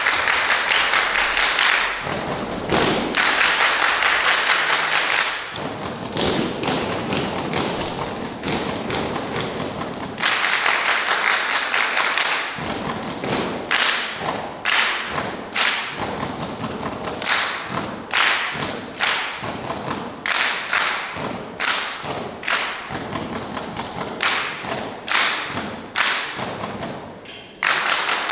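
A group clapping and doing body percussion in unison: rhythmic runs of sharp claps and slaps, broken by short pauses between phrases.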